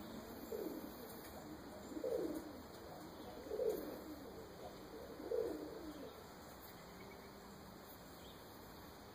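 Pigeon cooing: four low coos about a second and a half apart, stopping about six seconds in.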